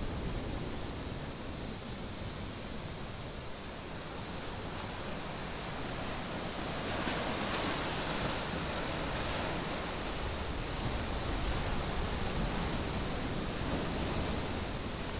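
Ocean surf breaking and washing over coastal rocks, a steady wash of waves that swells louder around the middle.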